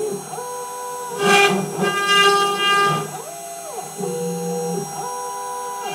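CNC router carving wood with a V-bit: the axis motors whine in pitches that rise, hold and fall with each move, over the steady tone of the spindle. Two louder rasps of cutting noise come about one and a half and two and a half seconds in.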